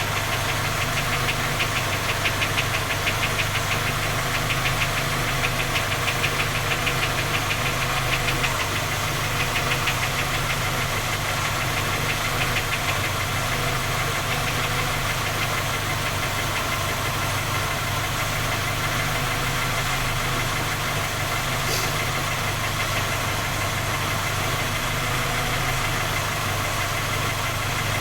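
Skoda Octavia A5 1.6 MPI four-cylinder petrol engine idling cold with a fast, regular knocking tick that is most prominent in the first half and then settles toward an even idle. This is the cold-start knock whose cause three engine repairs have failed to find.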